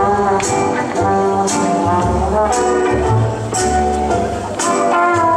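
Slow foxtrot dance music playing through the hall, a smooth tune of held notes over a bass line, with a bright accent on the beat about once a second.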